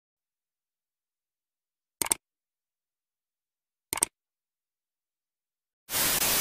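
Two short button-click sound effects about two seconds apart, each a quick double click. Near the end, loud TV-static white noise starts, breaking off briefly once.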